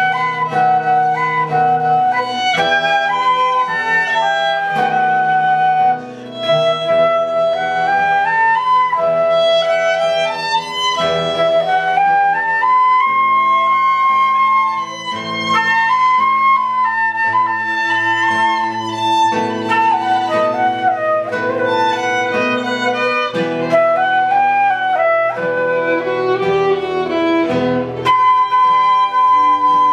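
Ensemble playing medieval-style music, with a flute-like wind instrument carrying a gliding melody over steady held low notes.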